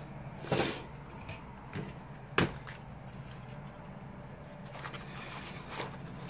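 Paper being handled on a craft table: a short paper rustle just after the start, a sharp tap about two and a half seconds in, and a few light ticks, over a faint low hum.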